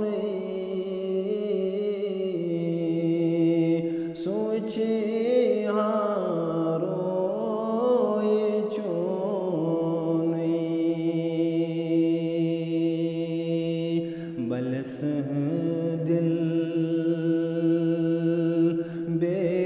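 Man's voice singing a Kashmiri naat, a devotional song in praise of the Prophet, in long, held, wavering notes, with short breaths about four seconds in and near fifteen seconds.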